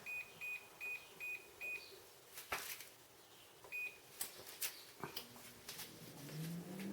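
Air fryer control panel beeping as it is set: five short high beeps about every half second, one more a couple of seconds later, with a few clicks between. Near the end the air fryer's fan starts up, its hum rising in pitch.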